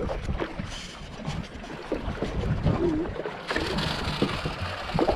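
Water lapping and splashing against the side of a small boat, with wind buffeting the microphone and scattered knocks; the splashing hiss grows louder about three and a half seconds in.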